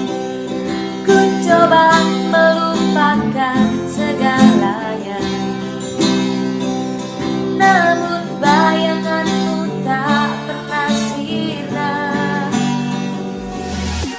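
Acoustic guitar playing a song's intro, plucked notes over a steady accompaniment.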